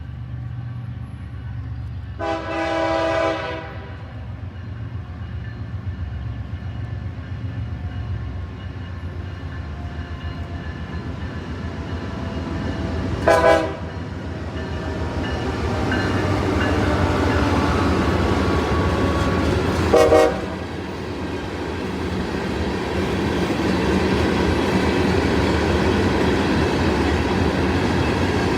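CSX ES44AH diesel locomotive on a passing local freight, sounding its air horn chord: one blast of about a second and a half near the start, then short blasts about thirteen and twenty seconds in. Under the horn the diesel engine rumbles steadily and grows louder as the train comes close, with wheels clicking on the rails.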